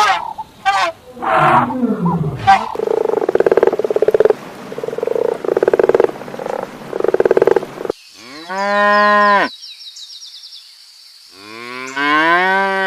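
A run of animal calls edited one after another: a jumble of short cries, then five rough pulsed calls, then two long mooing calls of cattle, the second rising in pitch.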